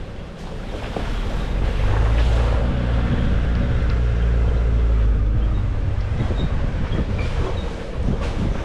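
Nissan Navara D40 pickup's engine running under load, swelling over the first two seconds and holding steady before easing near the end, with wind buffeting the microphone.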